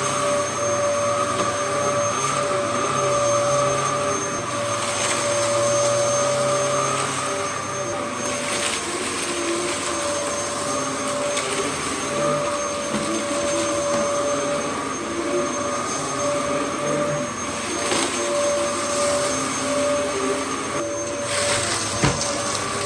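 Dyson DC07 upright bagless vacuum cleaner running: a steady motor whine over a rushing air hiss, the level wavering slightly.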